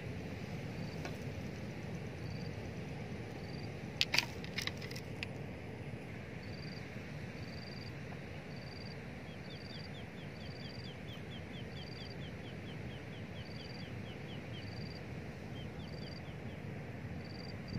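Open-air ambience by a pond: a steady low rush of wind. Over it a short high chirp repeats about once a second, a fast run of ticking comes in the second half, and a few sharp clicks fall about four seconds in.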